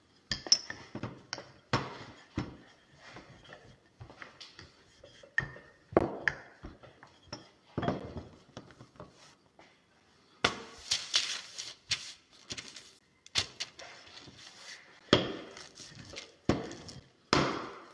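Wooden rolling pin rolling out dough on a metal worktop: an irregular series of knocks and clatters as the pin and hands strike the metal. About ten seconds in there is a longer stretch of rustling as baking paper is handled.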